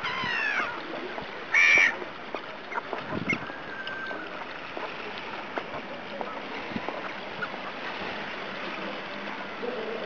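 Gulls and brent geese of a shore flock calling over a steady hiss of wind and sea: a few high, falling calls at the start and one loud, harsh call just under two seconds in, then only faint scattered calls.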